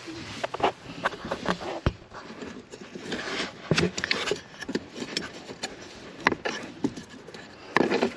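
Hands handling the heater blower resistor's wiring and nearby plastic parts under a car dashboard: irregular plastic clicks, knocks and scraping as the cable connector is pushed into place. There is a denser burst of handling near the end.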